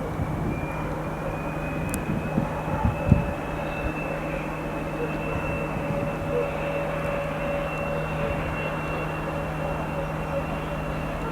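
TEP70 locomotive's 5D49 16-cylinder diesel running under power, its turbocharger whistle climbing slowly in pitch as the engine is notched up through the power positions, over a steady low engine drone. A few short knocks come about two to three seconds in.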